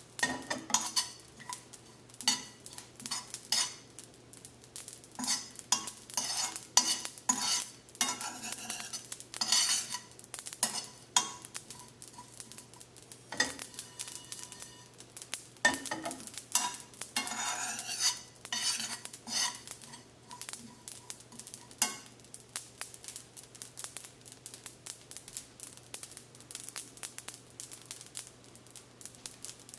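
A metal spoon stirring and scraping cumin seeds around a small stainless steel pan over a gas flame, with the seeds rattling and skittering as the pan is shaken, while they dry-roast toward golden brown. The scraping is frequent for the first twenty seconds or so, then comes only now and then.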